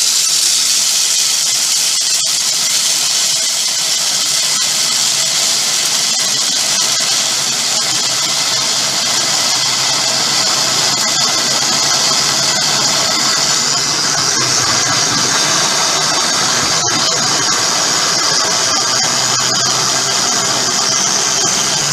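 Countertop blender running steadily at full speed, grinding dry puppy kibble pellets down to a powder. A loud, even whir with a rattling grind.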